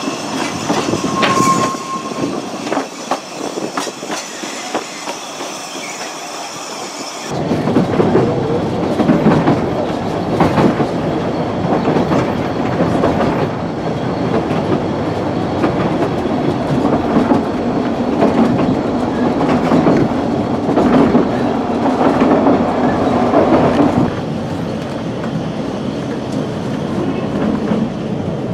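Narrow-gauge railway carriages of the Ffestiniog and Welsh Highland lines running on the track, with a brief wheel squeal in the first couple of seconds. After an abrupt change comes the louder rumble and rattle heard riding inside a moving carriage, with many irregular clicks of the wheels over the rails.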